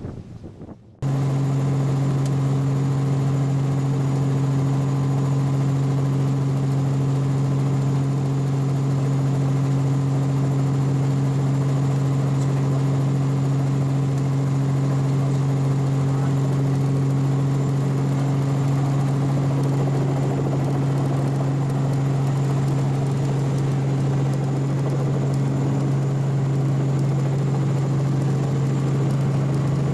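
Robinson R44 Raven II helicopter's six-cylinder Lycoming piston engine and rotor running steadily on the ground, heard from inside the cabin as a loud, even hum. It cuts in about a second in.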